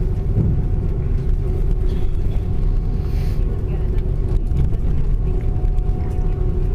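Steady cabin noise of an Airbus A330-200 on the ground with engines running: a continuous low rumble with a steady engine hum over it.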